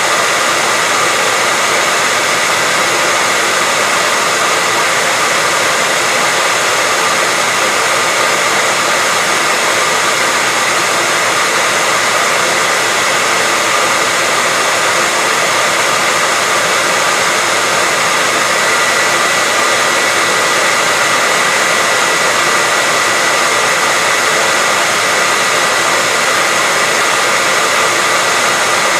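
Hair dryer running continuously at a steady speed: an even rushing of air with a steady whine from the motor and fan. Loud and unchanging throughout.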